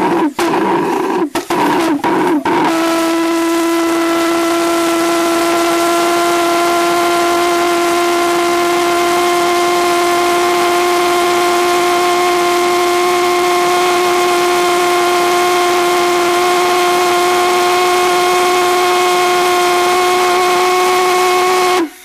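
Lady Anne Boleyn Rev.07 stainless steel valveless pulsejet, fuelled with propane vapour, starting: it stutters with gaps for about the first three seconds, then catches and runs with a loud steady drone at one pitch, edging slightly higher. Near the end it cuts off abruptly as the engine gives up, a failure to keep running that the builder traced to too little propane pressure through the small fuel tube.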